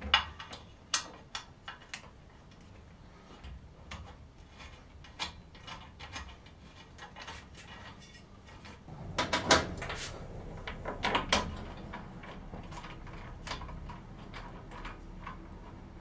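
Small metallic clicks and rattles of bolts and washers being handled and threaded into the flange of a pump station's pressure tank, with a busier, louder burst of clatter about nine to eleven seconds in.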